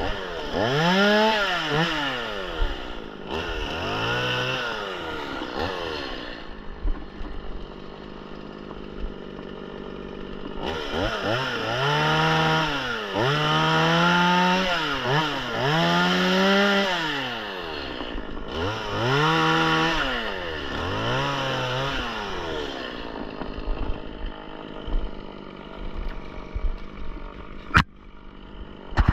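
Stihl MS 180 two-stroke chainsaw revved up and down in repeated bursts of throttle. It drops back to idle between two runs of revving. A single sharp knock comes near the end.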